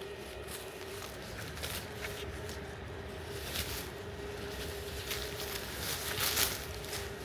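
Pruning shears snipping through mandarin branches, a few sharp cuts with leaves rustling, over a faint steady hum.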